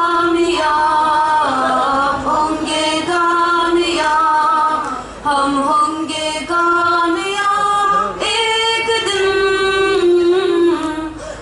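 A group of women singing a patriotic song together, in phrases of long held notes with a short pause for breath about five seconds in.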